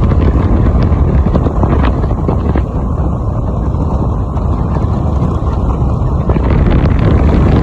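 Loud, steady wind rush buffeting the microphone, with a few faint knocks.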